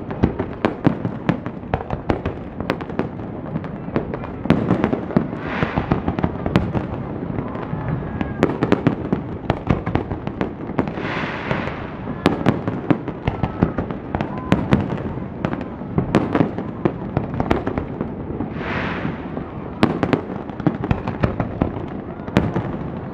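Aerial fireworks display: a rapid, continuous string of bangs and crackling pops from bursting shells, with three longer hissing swells between them.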